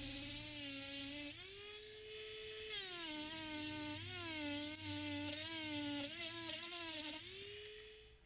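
Small high-speed electric rotary tool whining as it works on metal. Its pitch drops each time it is pressed onto the work and rises again when eased off. It winds down and stops near the end.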